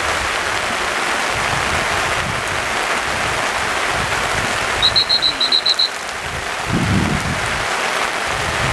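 Steady rain falling, an even hiss. About five seconds in comes a quick run of about eight short, high chirps.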